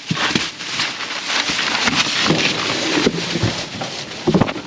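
Plastic trash bags rustling and crinkling as they are handled and shifted inside a dumpster, with a sharper knock near the end.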